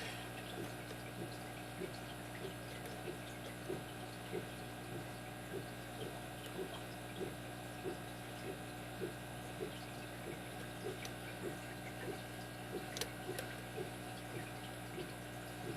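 Faint small clicks, about one or two a second, of a lock pick working the pin stack of a brass padlock under tension, over a steady low hum.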